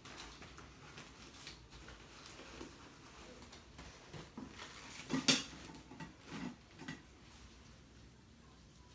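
Quiet handling noises: scattered light taps and clinks of small objects, the loudest a short double knock about five seconds in.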